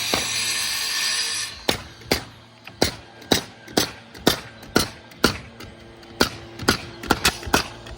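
Hammer strikes at an uneven pace of about two a second, each a sharp knock with a short ring. A steady noisy hiss runs under them and stops about a second and a half in.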